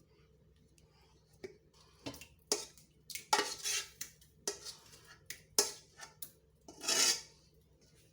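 A metal spoon scraping and knocking against a cooking pot as fried tomato stew is scooped out into a bigger pot. It starts about a second and a half in, with a series of clanks and several longer scrapes, the loudest near the end.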